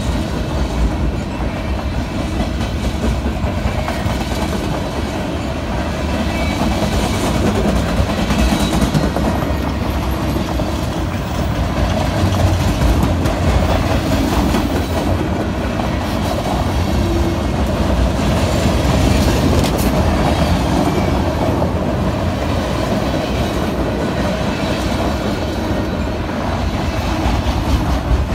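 Freight train rolling past: the steady rumble of loaded freight cars' steel wheels on the rails, with clickety-clack over the rail joints.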